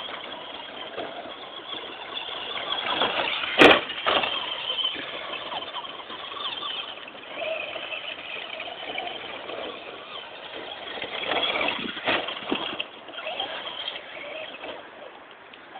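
Traxxas short-course remote-control trucks driving, their motors rising and falling in pitch with the throttle, with a single sharp knock about three and a half seconds in.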